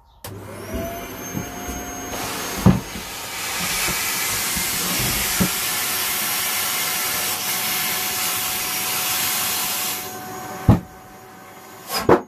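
Vacuum cleaner motor starting with a rising whine and running loud, drawing air through a cyclone dust separator on a plastic drum; it drops off sharply about two seconds before the end. Several hard thumps come through the running noise, with the loudest two near the end.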